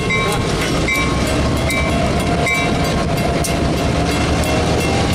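EMD GP38-2 and SW1500 diesel locomotives rolling slowly past, their engines running with a steady rumble. A bell rings in a steady rhythm, a little more than once a second.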